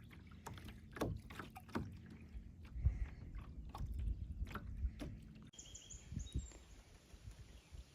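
Water lapping and sloshing around a small boat on a lake, with irregular light knocks against the hull. The background changes abruptly about five and a half seconds in.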